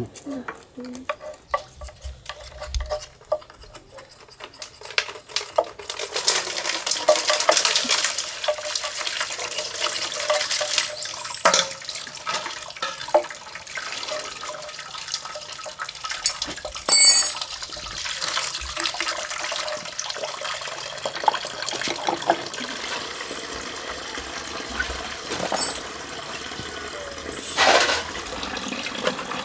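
Metal parts clinking, then about six seconds in water starts running and splashing steadily, with occasional sharper metal clinks over it, one ringing briefly.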